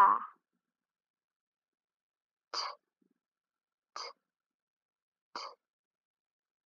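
Three short, quiet vocal sounds about a second and a half apart: a teacher softly voicing phonic letter sounds as she points to them.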